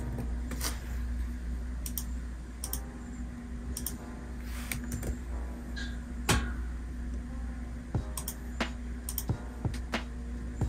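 Typing on a laptop keyboard: irregular key clicks over a steady low hum.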